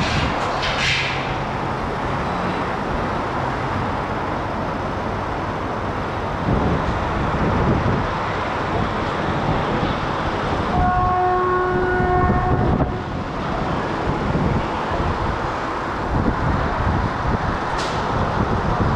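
Passenger train running on the rails, a steady rumble and rush of wheels and air heard from an open carriage door. About eleven seconds in, a train horn sounds one steady blast of about two seconds.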